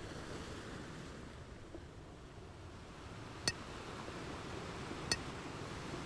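Gentle surf and wind along a calm sea shore, a soft steady wash. Two short, sharp clicks cut through it, about three and a half seconds in and again a second and a half later.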